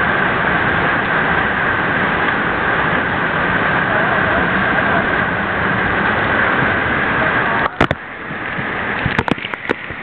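Waterfall water pouring down close by, a loud, steady rush. A little before the end the rush drops and is broken by sharp taps and splashes of water striking the camera.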